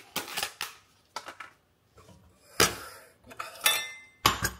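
Plastic lid twisted off a jar of peanuts, followed by a few sharp clatters and clinks of kitchenware as the peanuts are measured out. One clink, about three-quarters through, rings like metal.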